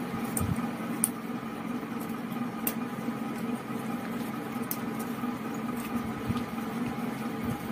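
Steady background hum with a few faint, sharp clicks of a small padlock being handled and fitted through a backpack's zipper pulls.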